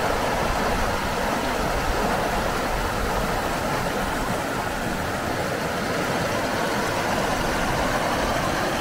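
River water rushing and splashing over boulders in a shallow rapid, a steady rush with no let-up.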